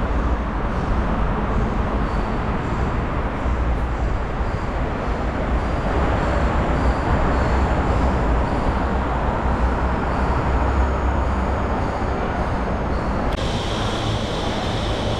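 Steady rumble of road traffic. About two seconds before the end, a steady high-pitched whine joins it.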